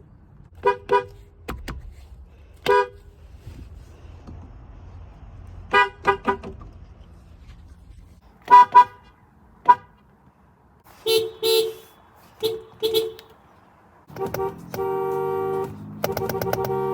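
Nissan car horns sounding in short taps and quick double beeps, a dozen or so, spread unevenly. Near the end comes a longer held honk, with music starting under it.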